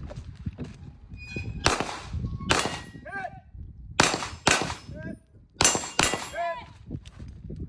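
Six pistol shots at irregular intervals on a firing range, each sharp crack followed by a ringing echo.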